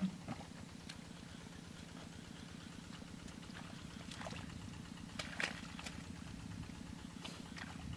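Hands digging and scooping in wet rice-field mud and shallow water, giving a few short squelching splashes, the loudest about five seconds in. Under it runs a steady low pulsing drone.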